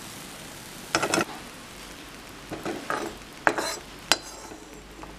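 Metal ladle scraping fried garlic cloves out of a kadai and tipping them into a steel bowl: a few short scrapes and knocks of metal on metal, about a second in and again between three and four seconds, over a faint steady sizzle of hot oil.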